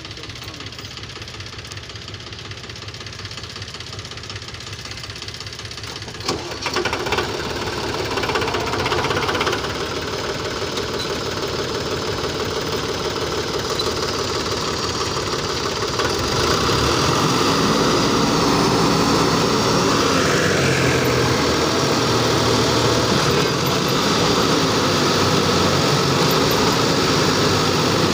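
Force Sanman 5000 tractor's diesel engine straining under load, dug in while pulling a heavily loaded trolley of soil through soft dirt. A few sharp knocks come about six seconds in, and the engine grows louder and stays revved harder from about sixteen seconds on.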